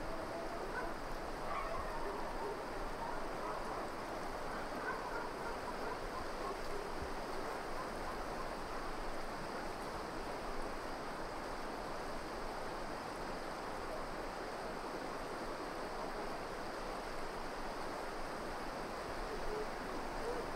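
Steady outdoor ambience: an even rushing noise, with a few faint high calls in the first five seconds.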